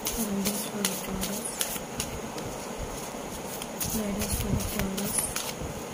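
A deck of tarot cards shuffled by hand: an irregular run of soft clicks and flicks as the cards slide and tap together. A low voice-like tone recurs behind it a few times.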